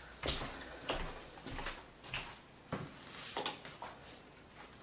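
Footsteps: a series of light taps and knocks, about one every half second to second.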